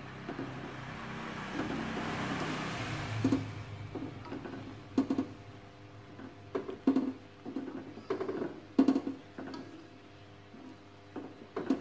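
Plastic spatula stirring rice in coconut milk in an aluminium wok, scraping and knocking against the pan at irregular moments, each knock ringing briefly. A steady hiss runs for the first three seconds and then stops abruptly.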